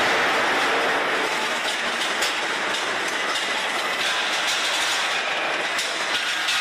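Steady industrial machinery noise from a hot-forging line handling glowing steel billets, with a few faint knocks.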